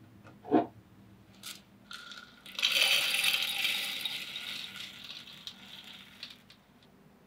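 Rolled oats poured from a plastic measuring jug into the metal bowl of an electric coffee grinder: a dense rattling patter of flakes on metal that starts about two and a half seconds in, is loudest at first and thins out. A single short knock about half a second in.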